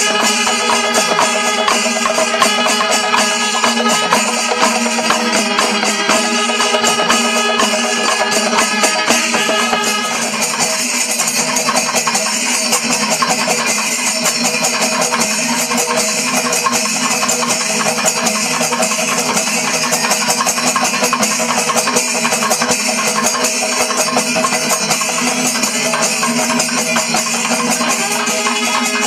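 Kerala panchavadyam ensemble playing: timila drums and ilathalam hand cymbals beating a fast, dense rhythm. Kombu horns sound held notes for about the first ten seconds, drop out, and come back right at the end.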